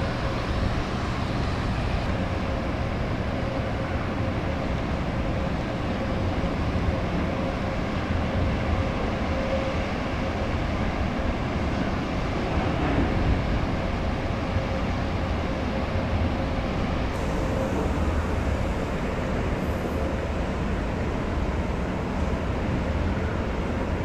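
Steady low rumble with a faint steady hum running through it.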